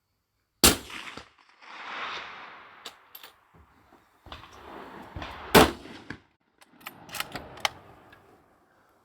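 Two shots from a .308 Remington 700 bolt-action rifle, about five seconds apart, with noisy handling sounds and a run of sharp clicks between and after them.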